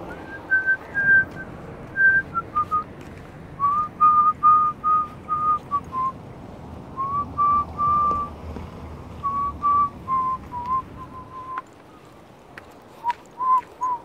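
A person whistling a slow tune in short, clear notes, phrase after phrase, the pitch stepping gradually lower.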